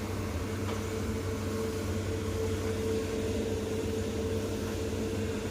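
Heavy excavator diesel engine running steadily, with a constant high hum over the low engine drone.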